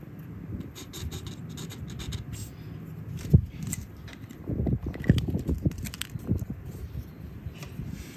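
Scraping, rubbing and light clicks of hands working tools and parts, with a sharp knock about three seconds in and a few more knocks around five seconds in.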